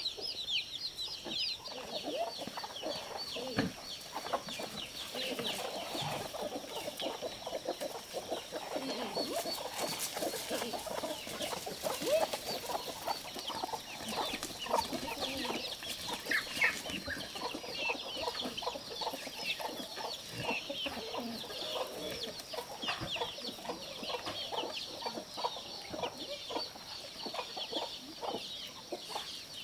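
Chicks peeping rapidly and without pause, with hens clucking among them.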